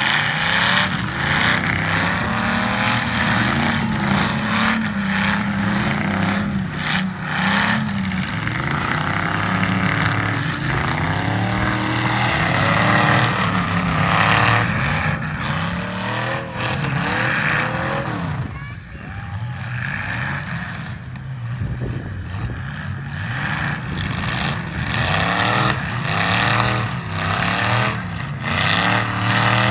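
Several demolition derby cars' engines revving up and down at once, their pitches gliding against one another, with repeated bangs of cars colliding. The engines ease off for a few seconds about two-thirds of the way through, then pick up again.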